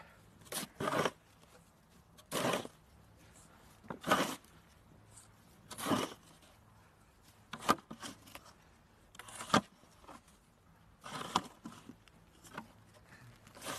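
Snow shovel scraping and digging into packed snow, about eight separate strokes a second or two apart.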